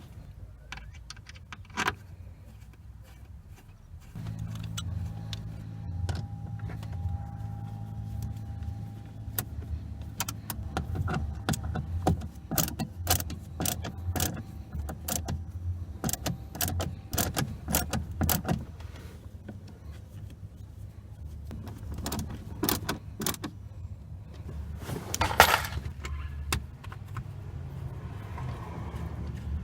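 Car-door speaker grille being fitted and screwed in by hand: a run of sharp clicks and taps of small parts, with one louder knock near the end. A steady low hum starts about four seconds in and runs underneath.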